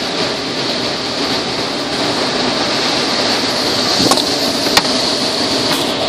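Automatic car wash water spray drumming steadily on the car, heard from inside the cabin as foam is rinsed off the rear window. Two sharp ticks stand out about four and five seconds in.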